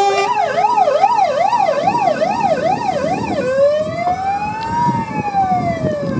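Fire engine's electronic siren on a fast yelp, about two and a half rises a second, switching about three and a half seconds in to a slow wail that rises and falls once. The truck's engine runs underneath as it passes and drives away.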